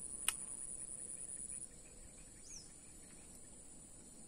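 Insects droning at a steady high pitch, part of the drone cutting off under two seconds in, with a short rising-and-falling chirp repeating about every two seconds. A single sharp click sounds near the start.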